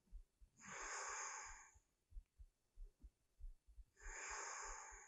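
A person's slow, steady breathing, heard as two audible breaths, each about a second long and about three seconds apart.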